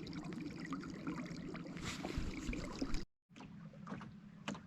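Water sloshing and trickling, with a steady low hum underneath. It cuts off abruptly about three seconds in, leaving faint background with a few sharp clicks.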